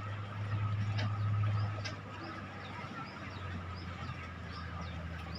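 A klotok river boat's engine running with a steady low drone, louder for the first couple of seconds and then easing off. Birds chirp repeatedly above it in short, high calls.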